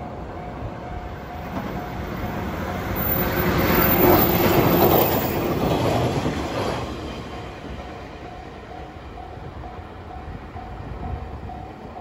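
413-series electric train passing over a level crossing: its running noise swells to a peak about four seconds in and fades by about seven seconds. The level crossing warning bell rings steadily in a repeating tone.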